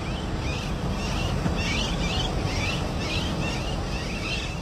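A steady low rumbling noise with birds chirping over it, short calls repeating a few times a second.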